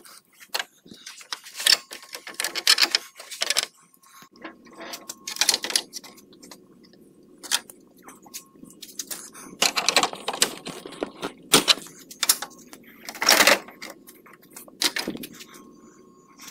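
Irregular plastic clicks, knocks and rattles as a Chevy Silverado's plastic radiator grille is handled and worked free of its clips, loudest in two bursts past the middle, over a faint steady low hum.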